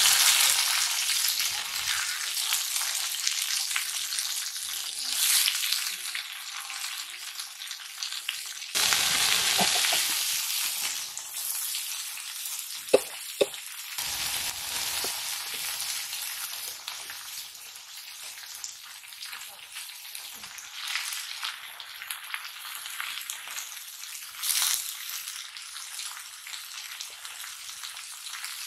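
Red spinach leaves sizzling as they fry in hot oil in a wok. The hiss is loud at the start and flares up again about nine seconds in, each time settling to a softer, steady sizzle. Two short sharp clicks come at about thirteen seconds.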